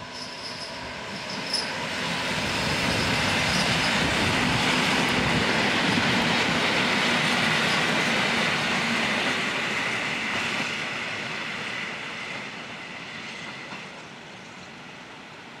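A PKP EN57 electric multiple unit passing on a far track. It grows louder for the first few seconds, stays loud for several seconds, then fades as it moves away, with a steady high whine over the rolling noise.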